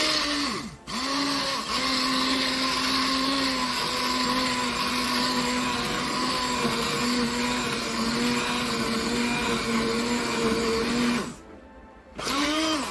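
Handheld immersion blender running in a pot of cooked cherry tomatoes, puréeing them for ketchup. The motor whine spins up with a rising pitch and cuts out for a moment near the start. It then runs steadily for about ten seconds, stops, and runs once more briefly near the end.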